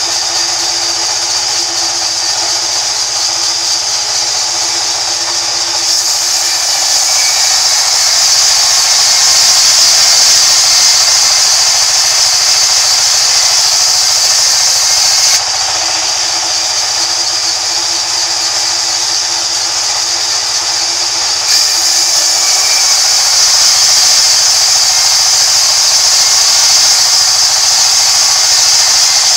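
Vertical band resaw running with a steady hum, and its blade twice cutting along a thick wood slab with a loud, steady hiss. Each cut lasts several seconds: the first starts about a fifth of the way in, the second about two-thirds through.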